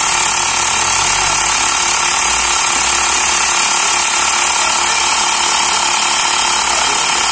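Xiaomi Mi Portable Electric Air Compressor running steadily as it pumps air into a motorcycle tyre, the pressure still climbing slowly.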